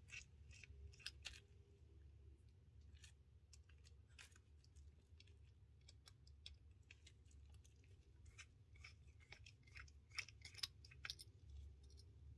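Faint, scattered small clicks and scrapes of a small screwdriver working the screws and plastic tower pieces of an HO-scale model locomotive chassis, thickest about ten seconds in.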